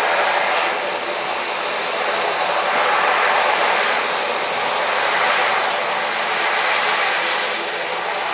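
Boeing 787-8 Dreamliner's GEnx-1B turbofan engines running at low taxi power as the jet rolls slowly along the runway after landing: a steady rush of jet noise that swells and ebbs slightly.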